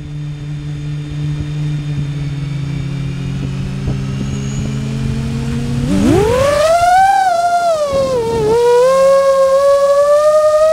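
The motors and propellers of an iFlight Nazgul Evoque F6 six-inch FPV quadcopter. A steady low hum gives way, about six seconds in, to a sharp rising whine as the throttle comes up. The whine then wavers in pitch as the throttle changes.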